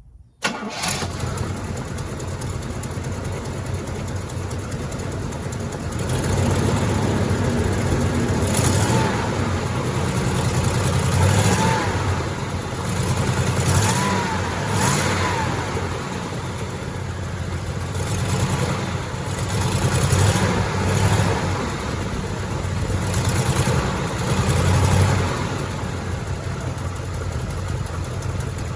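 1971 Oldsmobile Cutlass S V8 engine starting with a sudden catch about half a second in, then running fast on a cold start. From about six seconds in it swells and eases again and again as the gas pedal is feathered.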